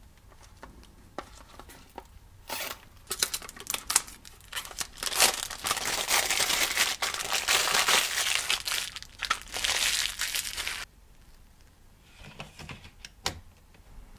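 Packaging being handled and pulled open: scattered crinkles for a few seconds, then about five seconds of dense crinkling and tearing that stops suddenly, followed by a few light knocks.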